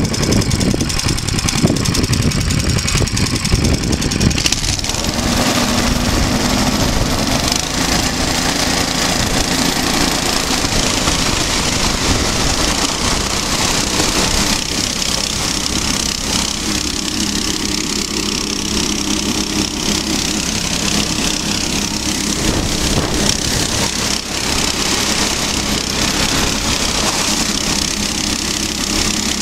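Small single-cylinder petrol engine of a motorized tracked tow unit (motosobaka) running steadily under load as it crosses lake ice, over a constant rushing noise of the track and wind.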